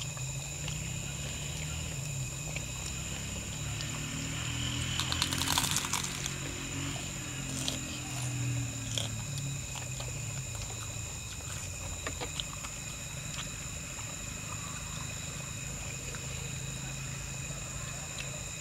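Night insects calling steadily in several high, even tones over a low, steady hum. A brief burst of rustling and crunching comes about five seconds in, with a few small clicks after it.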